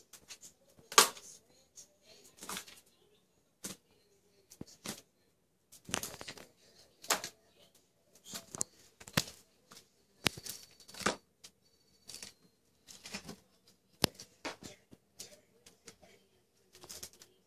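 Kittens scrambling on a carpeted cat tree and batting at a feather wand toy: irregular bursts of claw scratching, paw thumps and feather rustling, the loudest about a second in.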